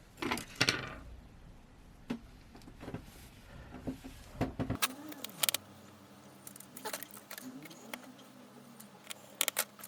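Small screwdriver and tiny screws clicking and tapping on a smartphone's frame and metal shield plate as three screws are fitted, in irregular light clicks with a few sharper taps.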